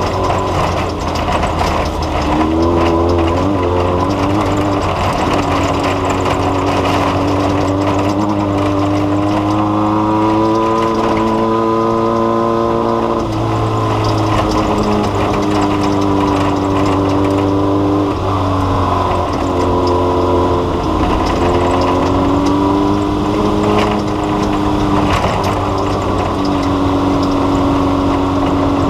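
An engine running steadily. Its pitch climbs for a few seconds about a third of the way in, then drops back suddenly, and later dips and rises again as the engine speed changes.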